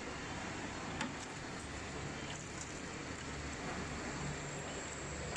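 Steady background noise of a street-food stall's cooking area, with a low hum running under it. One light knock sounds about a second in.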